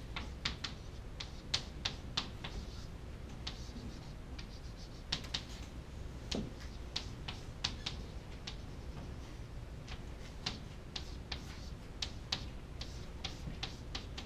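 Chalk tapping against a chalkboard while writing: irregular sharp clicks, two or three a second, over a low steady room hum.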